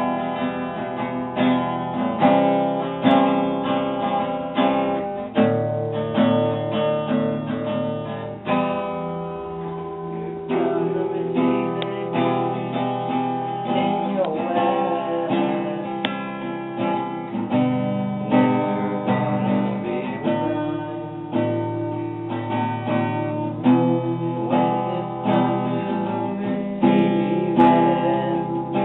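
A song played on strummed acoustic guitar, with a steady rhythm of strums and perhaps faint singing.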